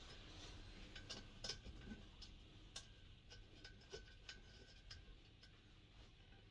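Faint, scattered small clicks and taps of parts and tools being handled while a diesel heater is dismantled, over a low background hum.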